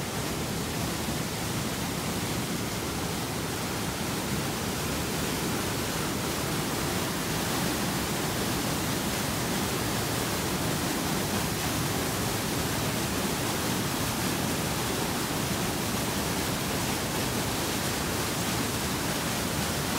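Small waterfall: white water rushing steadily down a narrow rock chute, heard up close.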